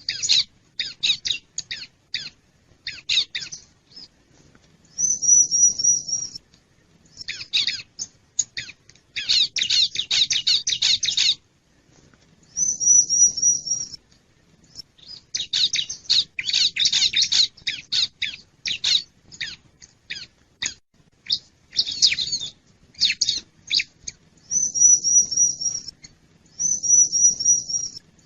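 Bar-winged prinia (ciblek) calling: rapid bursts of sharp, high chirps alternate with short trills of quickly repeated high notes, with brief pauses between the bursts.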